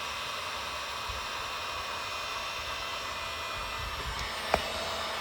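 Heat gun blowing steadily with a faint whine, warming a freshly applied vinyl decal to set its adhesive. A single sharp click about four and a half seconds in.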